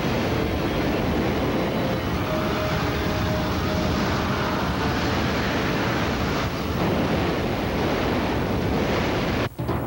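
Loud, steady roar of tornado-force wind blasting the camcorder microphone. It drops out abruptly for a moment near the end.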